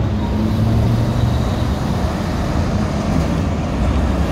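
Busy road traffic, with a heavy truck's engine running close by as a steady low drone under the general tyre and engine noise.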